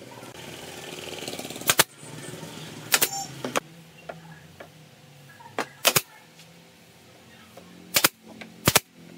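Pneumatic nail gun firing about seven sharp shots, one to two seconds apart and some in quick pairs, as nails are driven into a pine brace.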